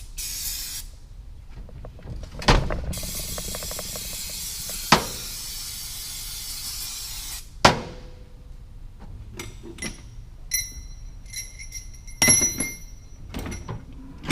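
Hiss of a spray in two spells, broken by three sharp metal clanks, then a run of light metal clinks with a ringing tone as steel transmission parts and tools knock together.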